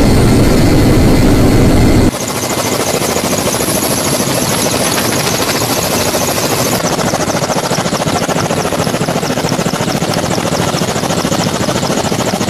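Helicopter rotor and turbine noise as heard aboard, a steady rapid blade chop. About two seconds in it changes abruptly from a louder, deeper rumble to a lighter, even chop.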